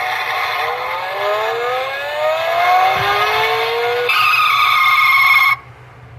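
1/18-scale Bugatti Chiron toy's electronic sound module playing recorded engine acceleration, the pitch rising in several sweeps one after another as if shifting up through the gears. It then holds a steady tone for about a second and a half that cuts off suddenly.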